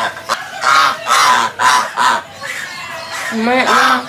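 Domestic geese honking close by, a run of loud calls about two a second, with a longer call near the end that slides in pitch.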